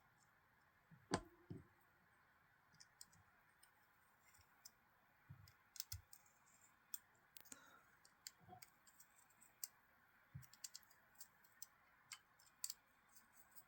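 Near silence broken by scattered faint clicks and light taps, the loudest about a second in, from a folding knife's small metal parts and tools being handled as it is put back together.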